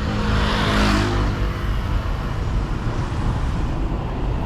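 Road traffic: a motor vehicle passes close in the first second, its engine note dropping as it goes by, over a steady low traffic rumble.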